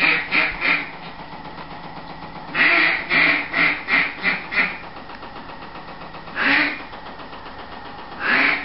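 Duck call blown in runs of quacks: a few at the start, then a quick run of about seven, then two single quacks. Underneath is a steady hum from a spinning-wing decoy's motor.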